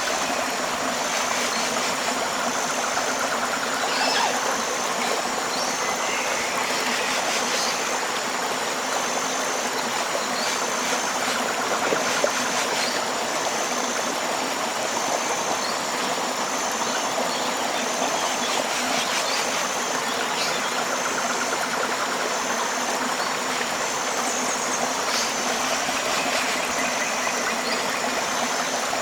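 Tropical river water flowing steadily, an even rushing trickle with no pauses, and a faint high tone pulsing on and off about every two seconds.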